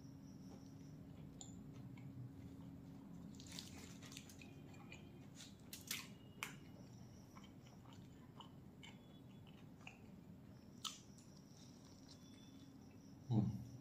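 Close-up biting and chewing of a large stuffed wrap roll: quiet mouth sounds over a steady low hum. A few sharp crinkles come about six seconds in as the foil wrapper is peeled back, and there is a louder bite near the end.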